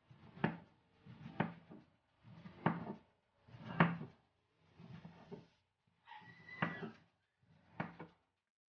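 Kitchen knife chopping peeled bottle gourd into chunks, each cut a short crunch through the flesh ending in a sharp knock of the blade on a wooden cutting board, seven chops about a second apart.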